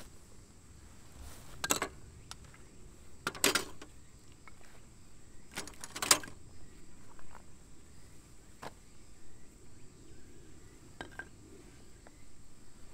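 Metal camp tools such as fire tongs and a knife being set down on split firewood in a steel container, with three short clinks and clatters in the first six seconds, then a couple of fainter taps.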